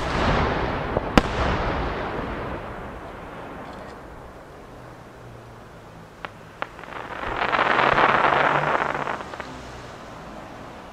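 Large 12-inch aerial firework shells bursting. There is a sudden loud boom at the start that echoes away over several seconds, a sharp crack about a second in, and two small bangs around six seconds. Then comes a dense crackling hiss that swells and fades over about two seconds near the end.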